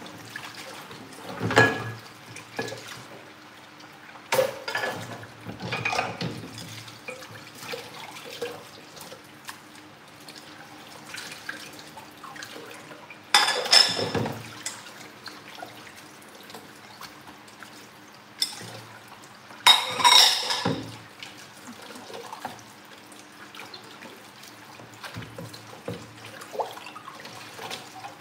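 Tap water running into a stainless steel kitchen sink while dishes are washed by hand, with dishes and pans clattering several times, loudest about halfway through and again about two-thirds of the way through.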